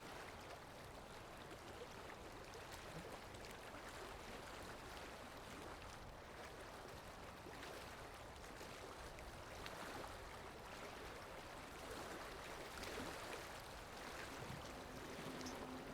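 Faint sea waves: a steady rush of water that swells gently a few times.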